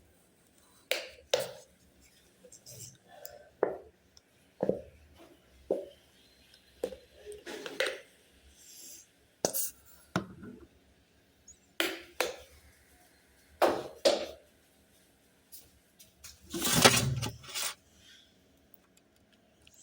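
Sticky glue-based slime being stirred and worked in a container with a utensil: irregular clinks, taps and scrapes about a second apart, with one longer, louder scrape or rustle near the end.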